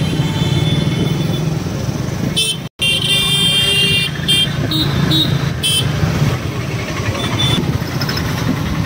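Busy street traffic with engines running and a run of horn toots, several short and two longer. There is a brief complete dropout about three seconds in.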